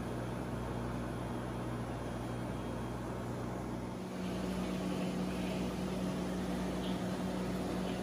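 Steady low hum of aquarium water-circulation equipment with an even wash of water noise, heard through a camera held under the water in the tank. The pitch of the hum changes about halfway through.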